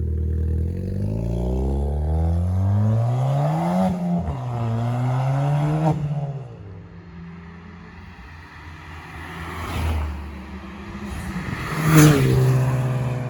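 Ford Fiesta ST's turbocharged four-cylinder engine through a KMS Hurricane decat exhaust, accelerating hard: the pitch climbs for about four seconds, dips at a gear change, climbs again and drops away about six seconds in. After a quieter stretch the engine swells again, with a sharp crack near the end before it settles to a steady note.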